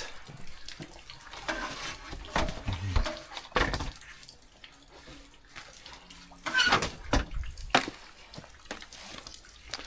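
Irregular clatters and knocks of hard objects being handled and moved about, with rustling in between, as things are searched through.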